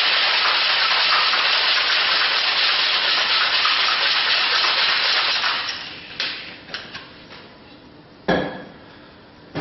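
Cocktail shaker shaken hard, a dense steady rattle that stops after about six seconds. A few clicks and one sharp knock follow near the end.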